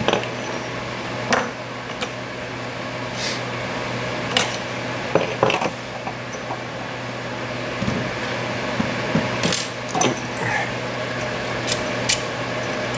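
Scattered metallic clicks and scrapes of a key being inserted and turned in a Medeco M3 six-pin padlock cylinder, over a steady low hum.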